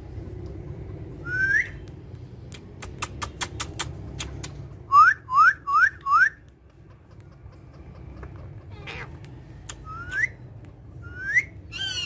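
Pet parakeets giving short rising whistles: one, then a quick row of sharp clicks, then four whistles in fast succession that are the loudest, and a few more near the end, over a steady low rumble.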